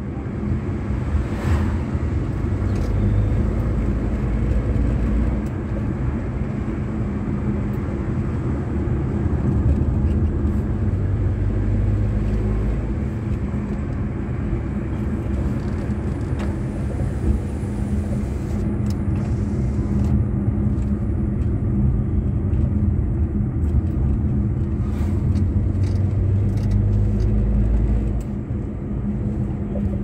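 Cabin noise of a moving car: a steady low rumble of engine and tyres on the road heard from inside, easing slightly near the end.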